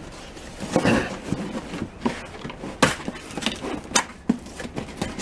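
Packaging of a new chisel set being handled and opened: a run of scattered clicks and knocks with rustling, the sharpest a little under three seconds in and about four seconds in.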